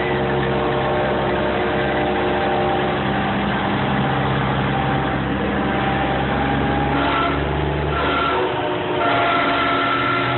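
Semi-truck diesel engines running steadily as the big rigs roll slowly past one after another. A steady high tone comes in twice near the end.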